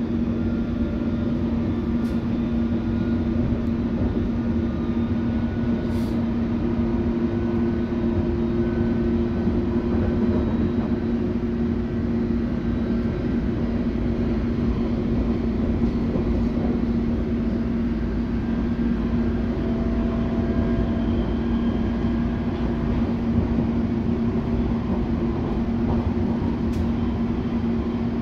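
London Underground District line S7 Stock train running steadily between stations, heard from inside the carriage: an even rumble with a constant low hum.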